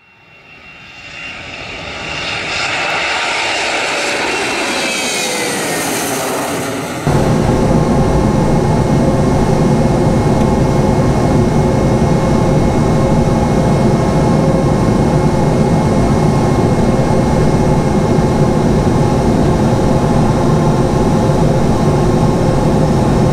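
A swelling whoosh with falling tones for about seven seconds, then a sudden cut to the steady noise of a Boeing 717's rear-mounted Rolls-Royce BR715 turbofans, heard from inside the cabin beside the engine. Several steady whining tones run through the engine noise, with no rise in pitch: the engines are running steadily before the takeoff roll.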